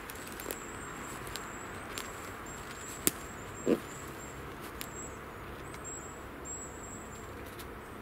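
Footsteps on the forest floor, with scattered light crackles of twigs and leaf litter and one sharp crack about three seconds in, over a steady outdoor hiss. A small bird repeats thin, high calls throughout.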